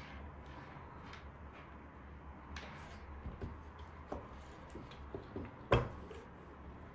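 Irregular light clicks and taps of computer hardware being handled, with one louder knock a little before the end, over a steady low hum.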